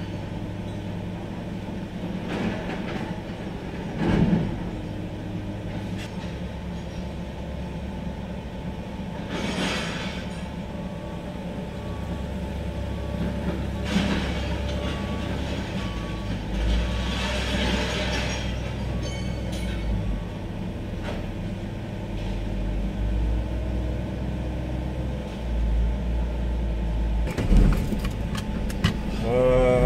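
Vehicle engine idling with a steady low hum, growing to a heavier rumble in the second half, with a few sharp knocks scattered through.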